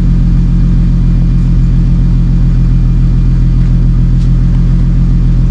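2015 Infiniti Q50 with a REV9 axle-back exhaust idling steadily, a low, even exhaust rumble with no revving.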